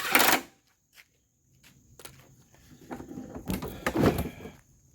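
Metal scraping and clattering as a push mower's wheel axle is worked with locking pliers: a short loud scrape at the start, a single click about a second in, then a couple of seconds of uneven scraping and rattling.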